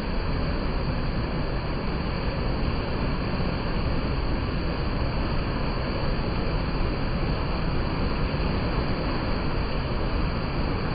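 Alpine mountain stream rushing over rocks: a steady, even roar of water.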